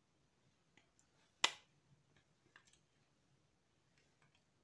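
Light plastic clicks and taps as AA cells are fitted into the battery slots of a small plastic Ni-Cd multicell charger, with one sharp click about a second and a half in and a few fainter ticks around it.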